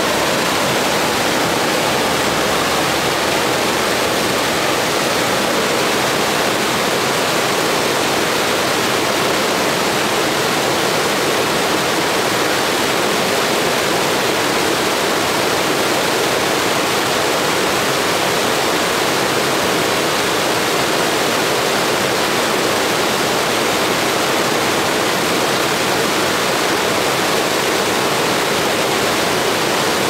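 Mountain stream rushing and splashing as it cascades over boulders in small falls: a steady, even rush of white water.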